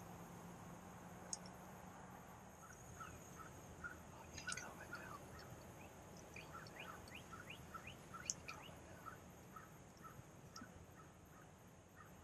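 Faint turkey yelping: a long steady run of short notes, about two a second, with a few quick higher chirps from a small bird mixed in partway through.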